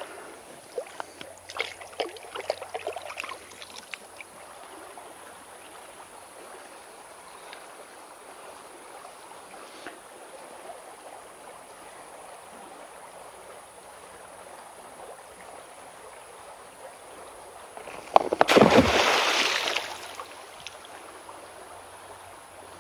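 A shallow river running steadily over stones, with a few light clicks in the first few seconds. Near the end, a stack of balanced stones collapses into the water: a sudden clatter and splash that lasts about two seconds.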